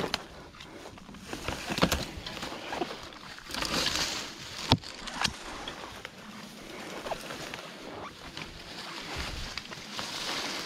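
A bicycle being pushed through brush on a trail: rustling with scattered clicks and knocks at irregular intervals.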